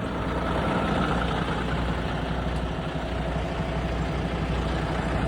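Semi-truck diesel engine running steadily at idle, a low, even rumble.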